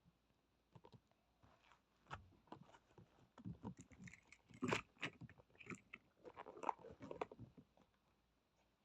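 Squishy foam toy being squeezed and handled close to the microphone: soft, irregular crackling and squishing, busiest in the middle.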